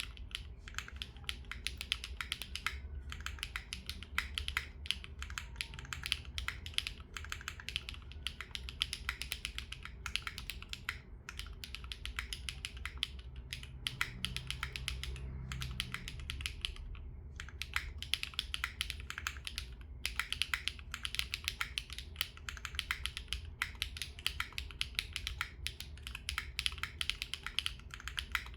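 Continuous fast typing on a foamless Neo60 Core mechanical keyboard with GearPod Crepe linear switches and an FR4 plate: a dense run of clacking keystrokes, broken by a few short pauses.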